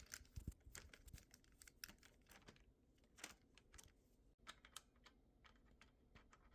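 Faint, irregular small clicks and ticks of a hand tool working the adjustable handlebar stem's clamp bolt on an e-bike, being loosened.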